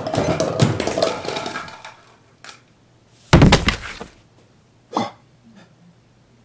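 Bedsheets and covers rustling as someone scrambles off a bed, then a single heavy thud about three seconds in and a short knock a little later.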